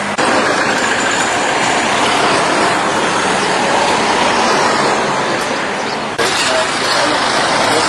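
Road traffic passing close by, a pickup truck among it: a steady rush of tyre and engine noise. The sound changes abruptly about six seconds in.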